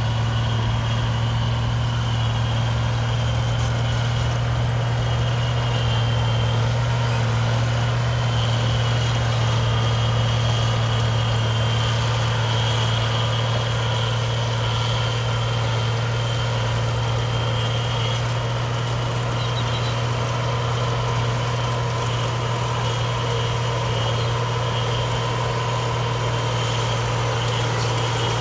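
Heavy diesel engine of earthmoving equipment running steadily at idle, a deep even drone that does not rise or fall, with a faint higher whine over it.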